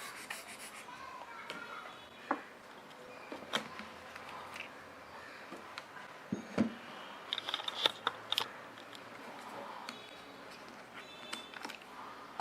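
Small clicks, taps and faint rustles of a camera lens filter and cleaning tools being handled, scattered irregularly with a cluster of quick clicks near the middle.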